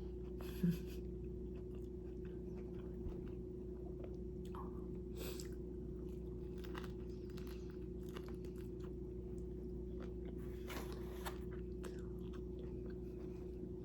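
A person chewing a mouthful of turkey wrap, with soft, scattered mouth clicks and smacks over a steady low hum.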